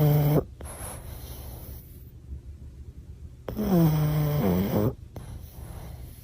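A sleeping dog snoring: a loud, pitched snore on each breath in, about four seconds apart, each followed by a softer wheezy breath out.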